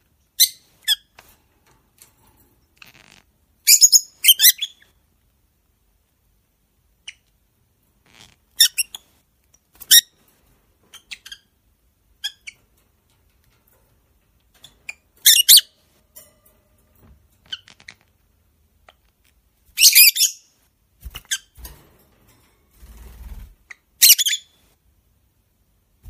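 Masked lovebirds (blue and cobalt mutations) giving short, shrill chirps and squawks in scattered clusters, with silences between. A few soft low knocks come near the end.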